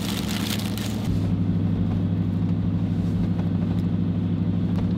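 Pickup truck engine idling, a steady low hum heard inside the cab. For about the first second a paper sandwich wrapper crinkles.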